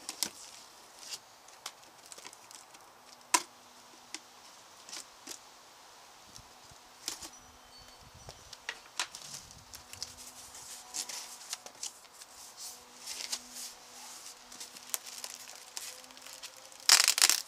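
A cardboard box being opened and unpacked by hand: scattered taps, scrapes and crinkles of cardboard and packing, with a louder burst of rustling and crumpling of paper and plastic wrapping near the end.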